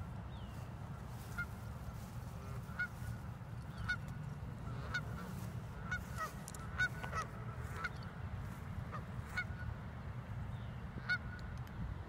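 Geese honking: a series of short, separate honks, roughly one a second and irregular, with a pause shortly before the end, over a steady low background rumble.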